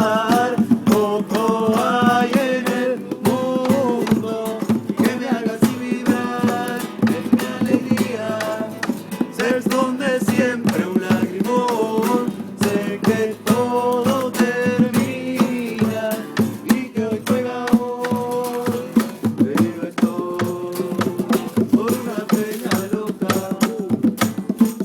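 Music: a song passage with steady percussion under a changing melody line, with no sung words.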